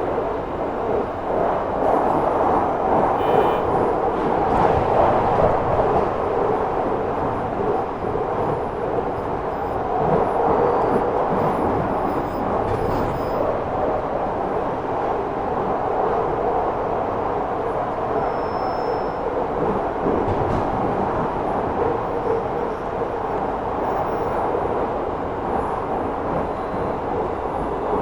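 London Underground 2009 Tube Stock train running between stations, heard on board as a steady tunnel and wheel rumble. It is mixed with the electromagnetic signal of its Bombardier Mitrac IGBT VVVF traction inverter and motor, picked up by a telephone pickup coil.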